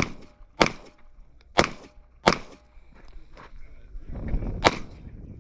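Airsoft pistol shots fired in an uneven string: about five sharp cracks, the first at the very start and the last near the end, with a couple of fainter clicks between them.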